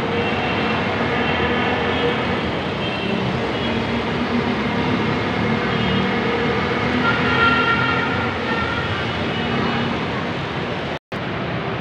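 Steady city road-traffic noise carrying into an open-sided elevated metro station platform. The sound drops out for an instant near the end.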